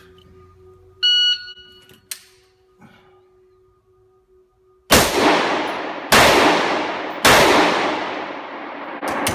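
A shot timer's start beep, then an AR-15 rifle in .223 fires three shots about a second and a quarter apart, each echoing off the concrete of an indoor range.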